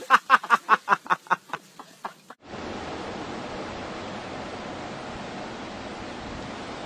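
Rapid rhythmic laughter, about five short bursts a second, that stops abruptly about two and a half seconds in. After it comes a steady rushing noise of wind on the microphone.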